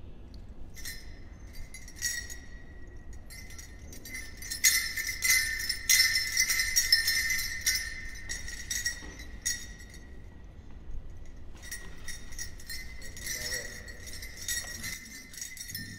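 Bells on men's traditional dance regalia jingling unevenly as the wearers move. The jingling is loudest near the middle, dies down briefly about ten seconds in, then starts again.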